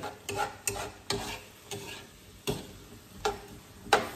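A cooking utensil stirring shrimp and frozen mixed vegetables in a soy-based sauce in a hot skillet: irregular scrapes and knocks against the pan over a low sizzle as the sauce reduces.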